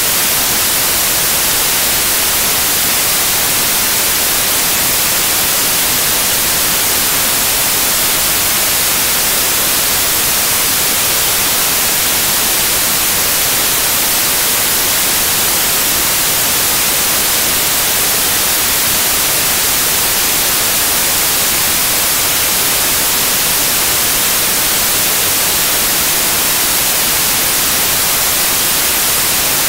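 Television static: a steady, loud hiss of white noise, like an untuned analogue TV, unchanging throughout.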